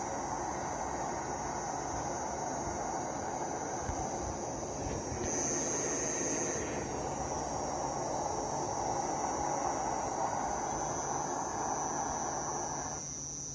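A loud, steady rushing drone of unknown origin, heard outdoors at night and reported as coming from the sky. Near the end it cuts off all at once, like an engine being switched off. Crickets chirp steadily under it and carry on after it stops.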